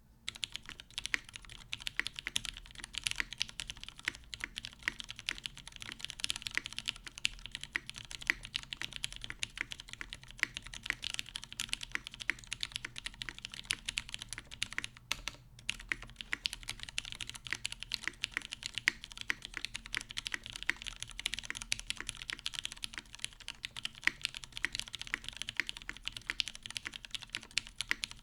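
Continuous fast typing on a TGR Jane CE V1 mechanical keyboard: lubed vintage Cherry MX Brown switches on an aluminium plate under GMK keycaps, giving a steady stream of keystroke clacks. There is a brief pause about halfway through.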